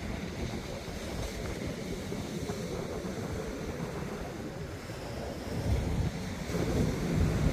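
Ocean surf breaking and washing up a sandy beach in a steady rush, with wind rumbling on the microphone that grows stronger in the last couple of seconds.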